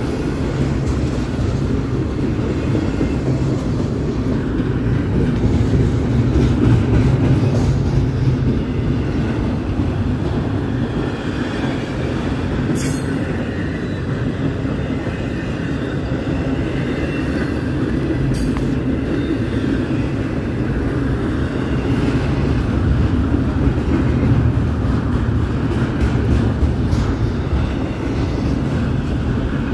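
Double-stack intermodal freight train's well cars rolling past: a steady, heavy rumble of steel wheels on rail.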